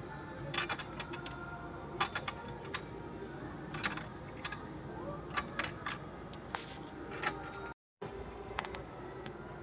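Irregular sharp metallic clicks and taps, often two to four in quick succession, from hand tools and metal parts being worked on a loose part of a mini Ferris wheel, over a steady background hum. The sound cuts out completely for a moment about eight seconds in.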